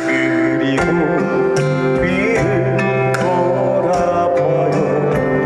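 A trot song played live over a PA, with guitar in the accompaniment and a singing voice.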